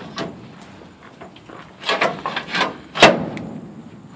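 A few scattered knocks and clunks, then one sharp bang about three seconds in that rings briefly.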